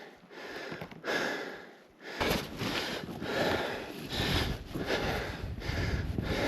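A person breathing hard while walking uphill in snow, breaths and steps coming in a steady rhythm of noisy swishes. A low rumble joins about two seconds in.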